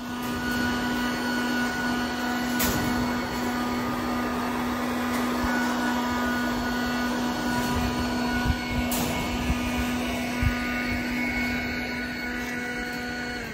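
A motor running at a steady, unchanging pitch, cutting in and out abruptly, with a few short clicks and knocks over it.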